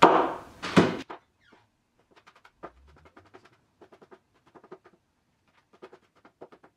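Kitchen knife chopping a jalapeño on a cutting board: light, rapid taps in several short runs.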